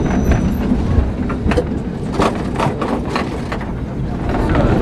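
Vintage Lisbon Remodelado tramcar running on street rails, heard from on board: a steady low rumble, with a run of sharp clicks and knocks from the wheels on the rails between about one and a half and three and a half seconds in.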